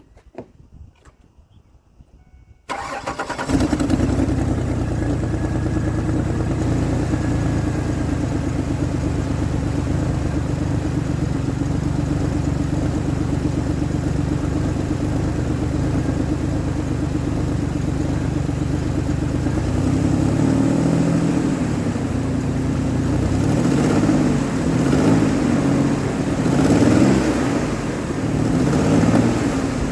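2003 Ford Explorer engine cranked and started about three seconds in, then idling steadily. In the last ten seconds it is revved up and down several times. It is running on a spare ignition coil fitted to cure a number-two cylinder misfire.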